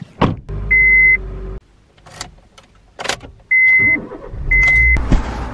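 Car ignition sounds: sharp clicks as the key is turned in the ignition, three short high beeps from the car's warning chime, and a low hum under the first beep and again near the end.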